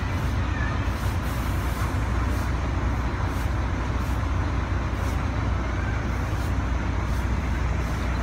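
Steady low rumble of large vehicle engines idling, like buses waiting with their engines running.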